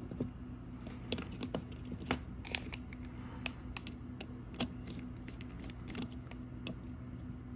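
Light, irregular clicks and ticks of a screwdriver turning a small screw in the metal bracket of an HP Turbo Drive card, with the card and tool being handled, over a faint steady low hum.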